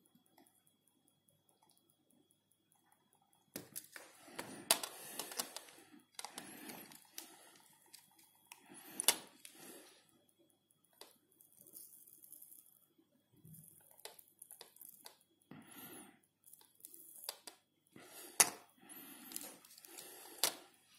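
Intermittent small clicks, taps and scraping handling noise from hand-soldering a perfboard with a soldering iron, with a few sharper clicks standing out.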